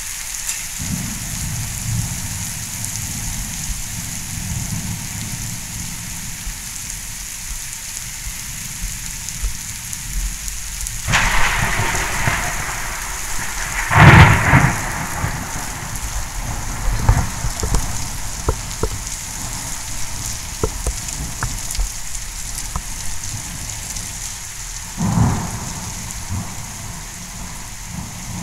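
Heavy rain falling steadily, with thunder: a rumble builds about eleven seconds in to a loud clap a few seconds later, and a shorter rumble comes near the end.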